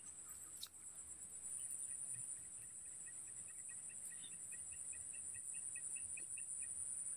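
Faint outdoor insect chorus: a steady high-pitched drone of crickets or cicadas, with a thin series of repeated chirps about three a second through the middle.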